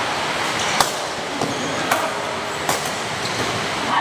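Steady hiss of rain with four sharp badminton racket hits on a shuttlecock, roughly a second apart.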